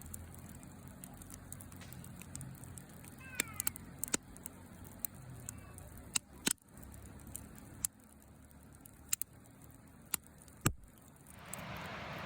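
Wood campfire crackling, with about ten sharp pops spread irregularly over a low steady background. Near the end a louder, even hiss takes over abruptly.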